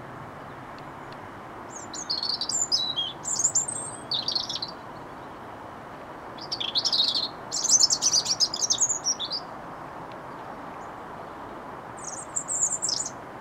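European robin singing its autumn song: three bouts of high, thin, rapidly changing warbled phrases with pauses of a couple of seconds between them, over a steady low background noise.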